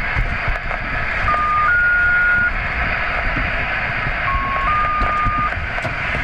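Heavy rain hissing steadily, with wind rumbling on the microphone. Over it, a few short electronic beeps, each held at one pitch and each at a different pitch: two about a second in and two more near the end.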